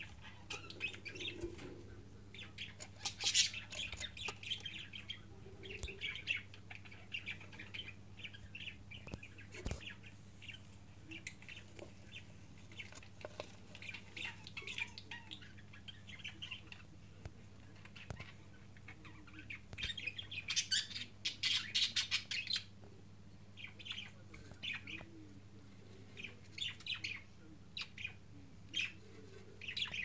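Budgerigars chirping in quick runs of short high calls, busiest and loudest about twenty seconds in, over a faint steady low hum.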